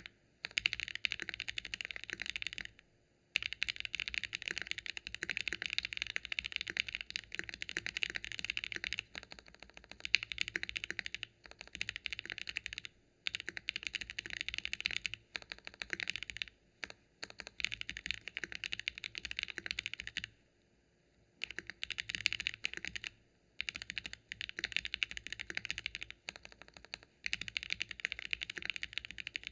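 Fast typing on a KBDfans Phase One 65 mechanical keyboard with Gateron Oil King linear switches, GMK keycaps and an aluminium plate, with the case foam fitted: a dense stream of keystroke clacks in runs, broken by brief pauses, the longest about a second long about two-thirds of the way through.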